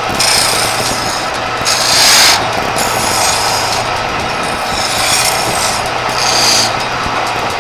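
Wood lathe running with a steady hum while a hand chisel cuts a spinning wooden charpai leg, in several short hissing scrapes as shavings fly off. The longest and loudest cut comes about two seconds in.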